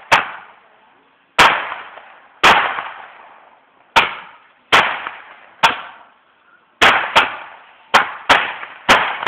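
Fireworks going off in a run of about eleven sharp bangs at uneven intervals, roughly one a second and sometimes two close together, each trailing off for a moment after the crack.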